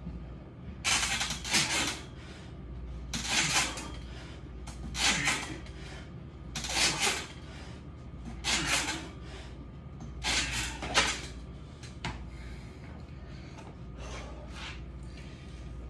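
A man breathing hard in rhythm with his pull-ups, a forceful breath about every two seconds for six reps, over a steady low hum.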